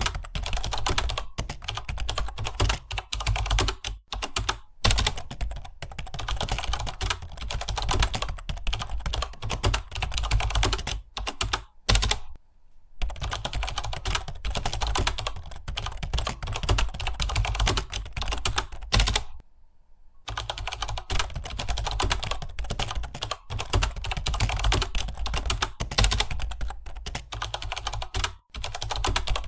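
Fast, continuous typing on a computer keyboard, with two brief pauses, about twelve and twenty seconds in.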